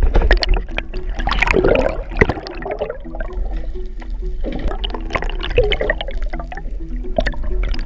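Water gurgling and sloshing around an action camera as it rides at the sea surface and dips under, with background music.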